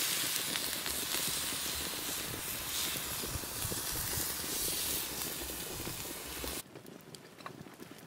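Smoky campfire under a jerky drying rack hissing steadily with faint crackles. It cuts off suddenly near the end, leaving a few light clicks.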